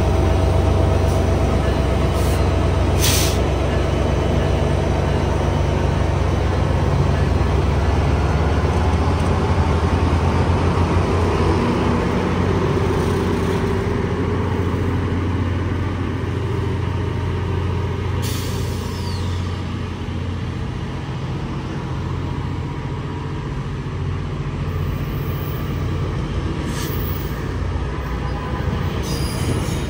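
Diesel locomotive engine running with a steady low drone that slowly fades over the first twenty seconds, with short hisses of air about three seconds in and again around eighteen seconds in.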